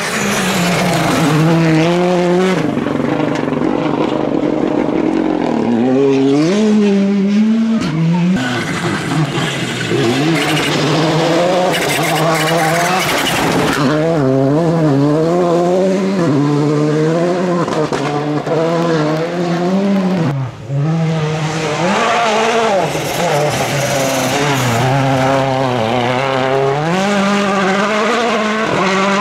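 Rally cars on a gravel stage, engines revving hard and falling back through gear changes as they pass at speed, with tyre and gravel noise. The sound breaks off briefly about two-thirds of the way through and then picks up again.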